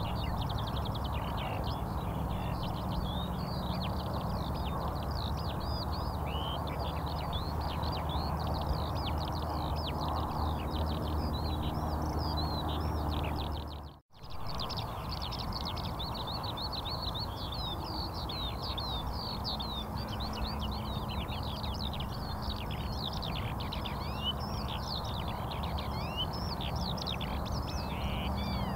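A dense chorus of many small birds chirping without pause, over a low steady hum. The sound cuts out for a moment about halfway through, then comes back the same.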